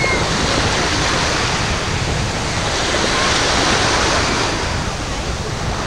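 Sea water sloshing and splashing around swimmers, with wind buffeting the microphone: a steady rushing noise with no distinct events.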